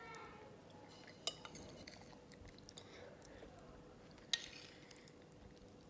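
A metal fork clinking twice against a glass plate, about a second in and again three seconds later, as food is scooped up.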